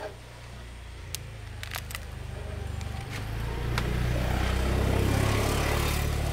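A heavy engine running at a low steady speed, then speeding up and growing louder about three seconds in. A few sharp clicks or knocks sound over it in the first half.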